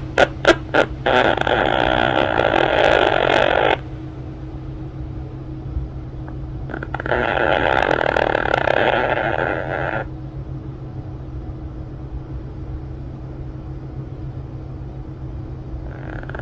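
Quaker parrot (monk parakeet) snoring in its sleep: a few quick clicks at the start, then two long raspy snores of about three seconds each, with a third starting near the end.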